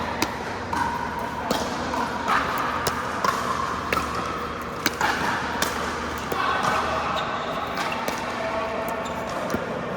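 Pickleball paddles striking the hollow plastic ball, mixed with the ball bouncing on the court: sharp pops at uneven spacing, about one a second. The loudest pop comes about five seconds in.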